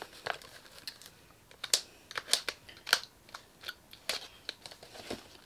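Scissors snipping the plastic ties that hold a doll in its box, with the packaging being handled: a string of irregular sharp clicks and snaps.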